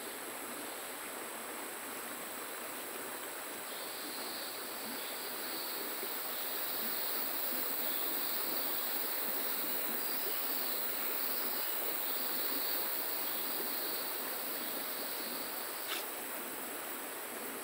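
Steady rushing of river water, with a high buzz running through the middle of it that fades before the end. A single sharp click near the end.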